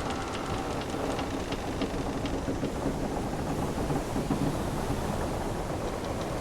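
Sailing-ship ambience: wooden hull and timbers creaking over a steady rush of sea water, with scattered small clicks and faint drawn-out creak tones.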